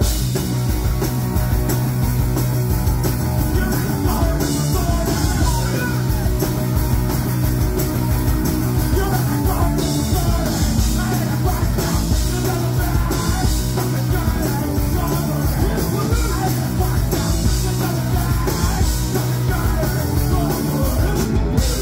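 Punk rock band playing live: electric guitars, bass guitar and drums with the singer's vocals over them.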